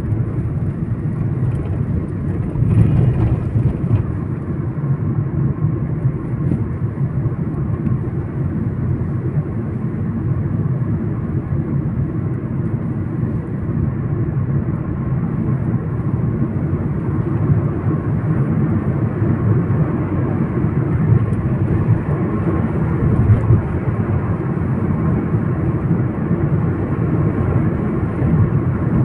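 Steady road and engine noise of a moving car, an even low rumble that neither builds nor fades.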